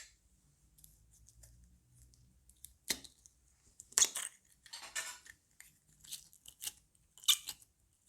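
Slime being squeezed and worked by hand, giving a series of sharp crackles and pops, about half a dozen in all, the loudest about halfway through and near the end.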